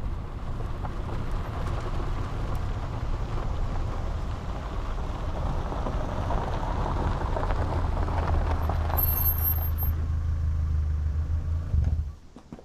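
Steady low engine rumble. A deep hum comes up in the second half and cuts off suddenly near the end.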